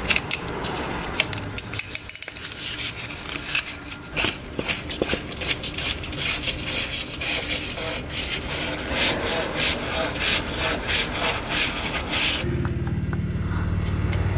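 Oil filter housing being screwed back on and tightened under the car, a fast run of rasping, scraping strokes. Near the end the strokes stop and a steady low hum comes in.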